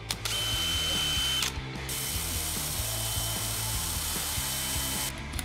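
DeWalt 18V cordless drill running under load with a short bit, drilling a hole into the side brush bar mount: a steady high whine. It runs for about a second and a half, stops briefly, then runs again for about three seconds and stops near the end.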